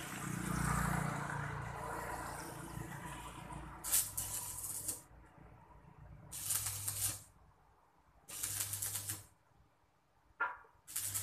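Electric arc welding in four short bursts of about a second each, every burst a dense crackle over a steady mains hum. A broad rushing noise fades out over the first three seconds.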